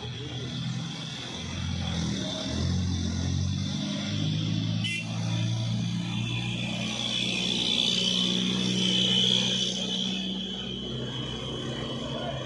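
Isuzu Elf NMR71 light truck's diesel engine running as the truck pulls slowly past at close range, growing louder about two seconds in. A steady high-pitched whine sits over it and is strongest around eight to nine seconds in, and there is one sharp click about five seconds in.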